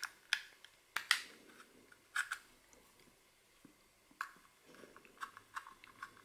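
Small screwdriver backing screws out of the metal caddy on a laptop hard drive: scattered sharp clicks and short gritty scrapes, with a quicker run of small ticks near the end.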